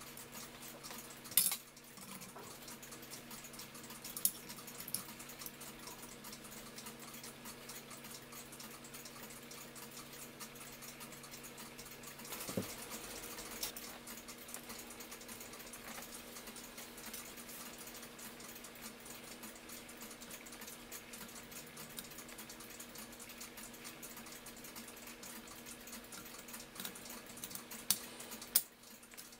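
Light clicks and taps of small brass clock parts being handled and set into a clock movement's plates, a few sharper clicks about a second and a half in, around four seconds, around twelve seconds and near the end, over a steady low hum.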